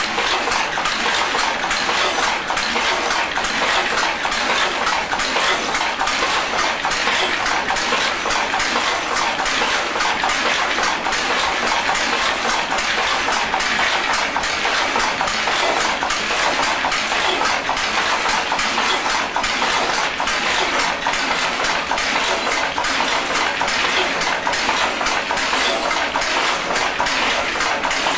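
Double-width power loom weaving Harris tweed, running at full speed with a steady, rapid mechanical clatter.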